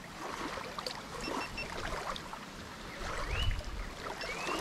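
Small waves lapping and washing over the gravel edge of a lake, with a low rumble of wind on the microphone about three seconds in. Two short rising whistles sound near the end.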